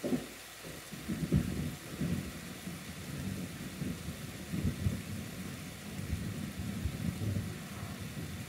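Rolling thunder rumbling for several seconds, swelling loudest about a second and a half in and again near the middle, over a steady hiss.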